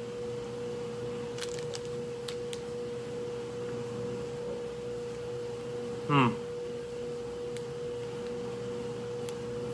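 Steady, even hum of a household appliance running in the background, holding one unchanging tone. A few faint clicks come about a second in, and there is a brief hummed "mm" from the taster about six seconds in.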